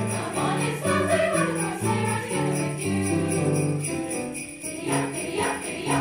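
Sleigh bells shaken in a steady beat along with a choir singing held notes.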